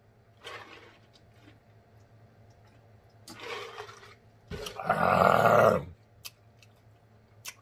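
A man drinks from a pitcher, with faint sounds of drinking, then lets out a loud, rough throaty sound lasting about a second, about five seconds in.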